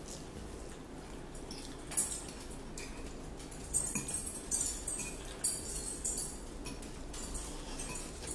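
Metal fork clinking and scraping against a ceramic bowl of noodles while eating: scattered light clinks, about one a second, starting about two seconds in.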